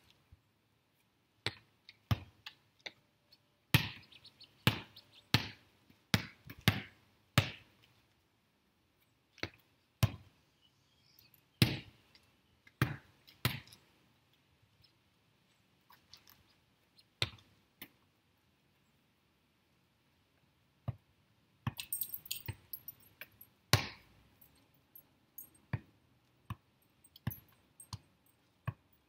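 Volleyball being hit off forearms and hands and bouncing on concrete: a long string of sharp slaps and thuds at irregular spacing, with a pause of a few seconds about two-thirds of the way through.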